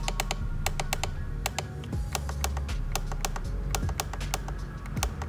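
Quick, irregular clicks of buttons being pressed on a FrSky Taranis X9D Plus radio transmitter while scrolling through its menus, several a second. Background music with a low bass line plays underneath.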